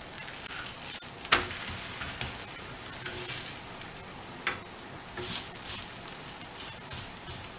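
Cucumber thalipeeth sizzling in oil on a tawa over high heat, a steady crackling hiss. It is flipped with a wooden spatula, with a sharp knock about a second in and a smaller one past the middle.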